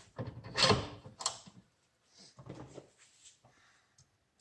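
Plastic plug housing being handled and pried apart with a tool: a loud scraping and clicking in the first second and a half, then fainter rustling and small clicks.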